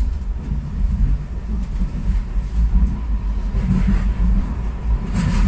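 Utrecht's oldest-type sneltram, an articulated SIG light-rail tram, running along the track, heard from inside the passenger cabin: a steady low rumble of wheels and running gear with a faint steady whine, and two short louder noises, the second and stronger one near the end.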